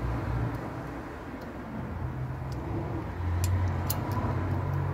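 Steady low rumble of road traffic that swells about three seconds in, with a few faint light clicks near the end.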